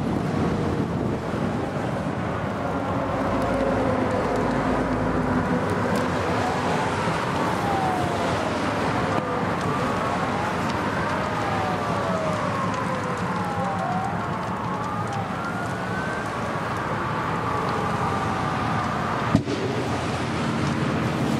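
Several emergency-vehicle sirens wailing at once, their pitches rising and falling and crossing one another over a steady rushing noise. A single sharp pop comes near the end.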